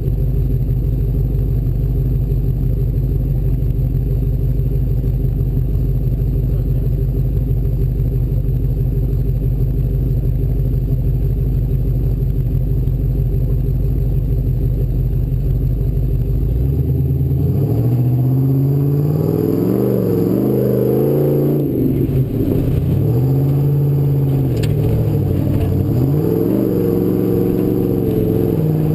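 Off-road race Ford Bronco's engine running under a steady, unchanging load for the first part. About two-thirds of the way in, its pitch begins rising and falling repeatedly as it revs up and eases off several times.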